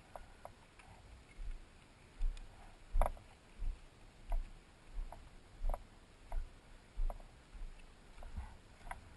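Footsteps at a walking pace: regular soft thuds, each with a light click, about three every two seconds, starting a second or two in.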